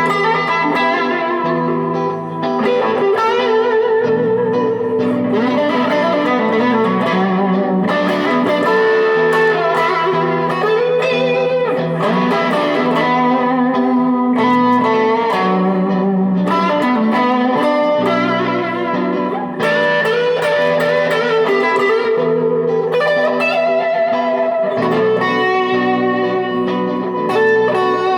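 Electric guitar played through a 1977 Fender Bassman 70 tube amplifier: an unbroken improvised jam of ringing chords and single-note lines.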